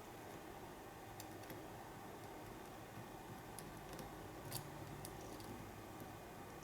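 Faint, irregular small clicks of a lock pick working the pin stack of an American padlock held under tension, over a low steady hum.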